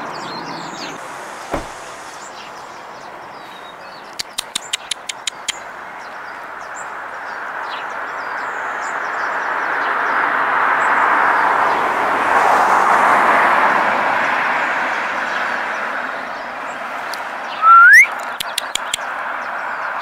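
Birds chirping over the steady hum of passing road traffic, which swells to its loudest midway and fades. About 4 s in comes a quick run of about seven sharp chips. Near the end a short, loud rising whistle is followed by a few more chips.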